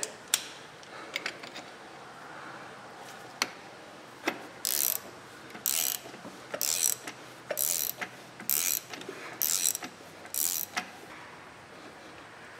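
Ratchet wrench turning the forcing screw of a jaw puller on the transmission shaft, a few scattered knocks and then seven bursts of ratchet clicking about one a second, each a stroke of the handle as the puller draws a part off the shaft.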